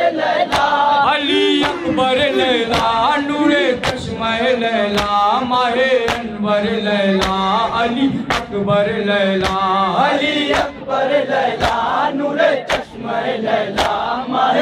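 Men chanting a Shia nauha (lament) together while a crowd of mourners beats their chests in unison (matam), the hand strikes landing about once a second.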